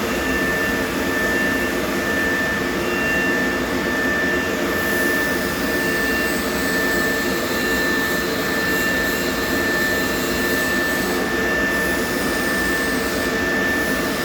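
A motor running steadily, with a constant high-pitched whine over its hum.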